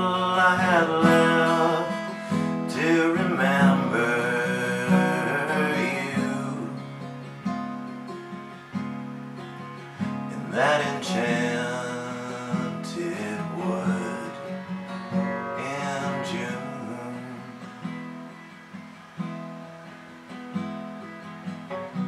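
Epiphone steel-string acoustic guitar strummed, with a man singing over it in the closing bars of a slow song. The playing gradually grows quieter toward the end, and the voice drops out in the last few seconds.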